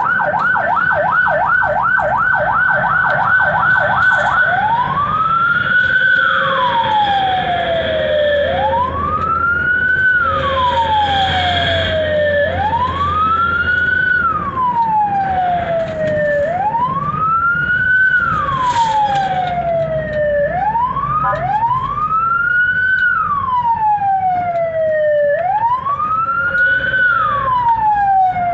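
Ambulance siren heard from inside the cab. It starts on a rapid yelp, then changes about four and a half seconds in to a slow wail that rises and falls about every four seconds, over a steady engine hum.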